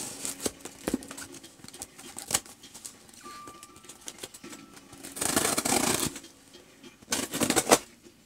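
Packaging being worked open by hand: small clicks and rustles, then two louder ripping sounds about five and seven seconds in, the first lasting about a second.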